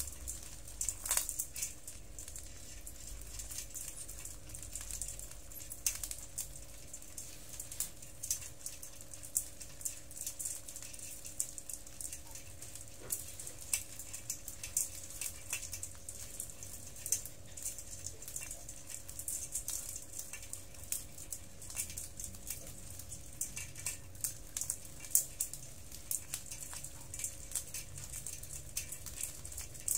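A crowd of land hermit crabs crawling over each other in a basin, their shells clicking and rattling against one another and the bowl in a dense, irregular patter of small taps.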